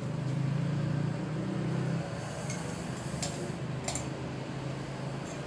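Crockery clinking three times against a stainless steel sink as a mug, bowl and spoon are washed by hand, over a steady low machine hum that drops a little about two seconds in.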